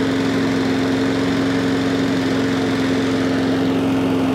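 Honda 160cc overhead-cam engine on a walk-behind rotary lawn mower running steadily at an even, fairly high speed. It runs smoothly on a freshly cleaned carburettor.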